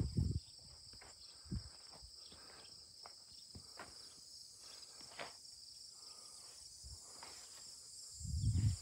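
Insects chirring steadily in the background, with soft footsteps on grass. A louder low rumble comes near the end.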